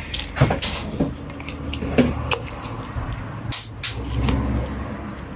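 Handling noise: a scatter of irregular clicks and knocks as a cordless drill's battery pack and its charger are picked up and connected for a charging test.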